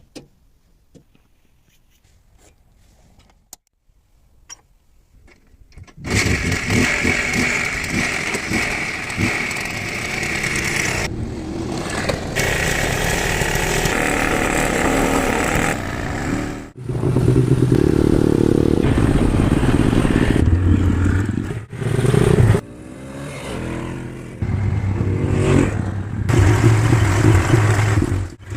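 Small scooter engine running loud and steady, after a few faint clicks, in several stretches that cut off abruptly and start again.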